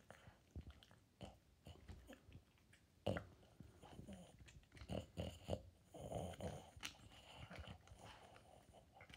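Boston terrier gnawing on a chew bone: irregular, faint clicks and crunches of its teeth, with noisy breathing through its short nose between bites, and a sharper crack about three seconds in and again near seven seconds.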